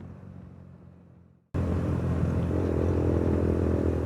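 Suzuki Gixxer motorcycle with a loud aftermarket exhaust running on the move. Its sound fades away over the first second and a half, then cuts back in suddenly, loud and steady.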